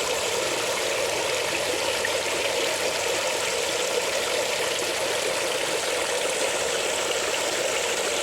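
Steady rush of running water, like a stream or fountain, holding an even level throughout.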